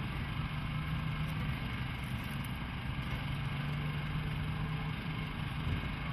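A motor vehicle's engine running at a steady pitch, with an even rushing noise behind it.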